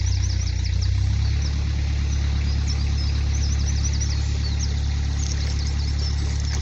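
Narrowboat engine running with a steady low hum, its note shifting about a second in. Birds chirp over it.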